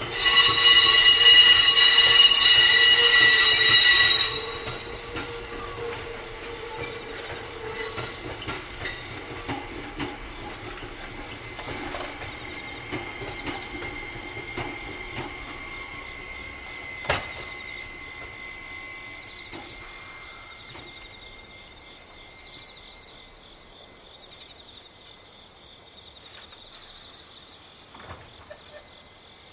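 An electric train at a depot: a loud, steady high-pitched tone for about four seconds that cuts off suddenly, then the quieter rumble and scattered clicks of the train moving slowly over the tracks, fading away.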